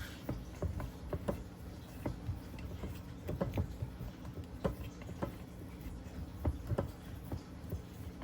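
Light, irregular clicks and taps of kitchen utensils against a pan, a few a second, over a steady low hum.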